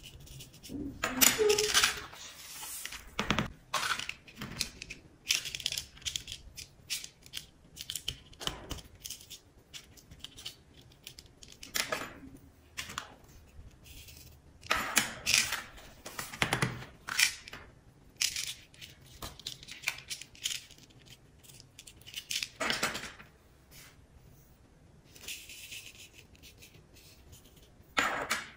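Orange plastic spoon scooping coloured craft sand from plastic pots and scraping and tapping it onto a sticky sand-painting card. The sound is irregular: scratchy rustles and small plastic clicks, with short quiet gaps between them.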